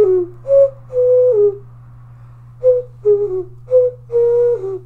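Handmade strawberry-shaped ocarina of unfired, painted clay playing a short melody of clear single notes, in two phrases with a pause of about a second between them; the longer held notes step down in pitch at their ends.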